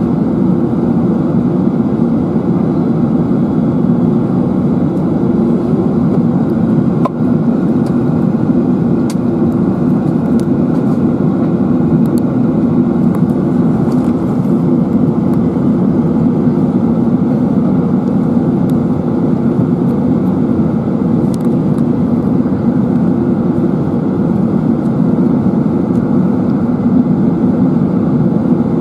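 Steady in-flight cabin noise inside an Airbus A380-841 heard from a window seat over the wing: the drone of its Rolls-Royce Trent 900 engines and air rushing past the fuselage during the descent.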